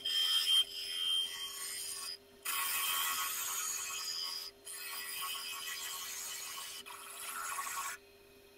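Half-inch bowl gouge taking light finishing cuts inside a spinning ash bowl on a wood lathe: a steady hiss of wood being cut, broken off briefly twice and stopping shortly before the end, over a steady low hum.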